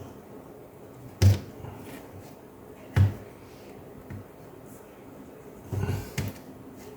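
A few sharp knocks and taps of a laptop's plastic parts being handled during a repair: two single knocks, then a short clatter of several near the end.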